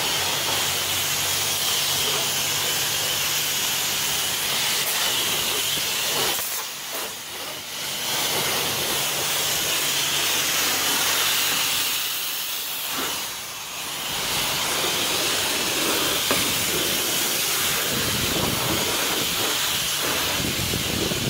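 Self-serve car wash high-pressure wand spraying a truck: a steady hiss of the water jet that eases off twice briefly, about six and thirteen seconds in.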